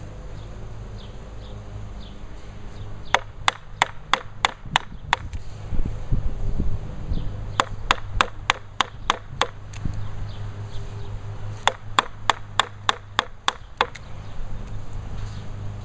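Framing chisel struck with a mallet, cutting a notch into a timber sill. Sharp strikes come in three runs of about eight, roughly four a second, with short pauses between.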